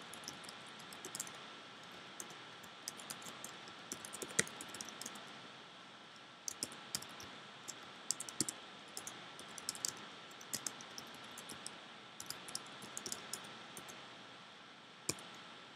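Typing on a computer keyboard: irregular bursts of quick key clicks with short pauses between, over a faint steady high hum.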